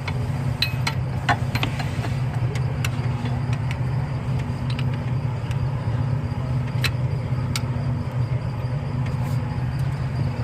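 A steady low mechanical hum, with scattered sharp metallic clicks and taps from a breaker bar and 19 mm socket on the crank pulley bolt of a Mazda RX-8's 13B rotary engine. The bar does not turn the engine, because the engine is locked.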